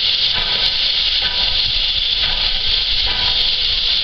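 Standing steam tank locomotive giving off a steady hiss of escaping steam.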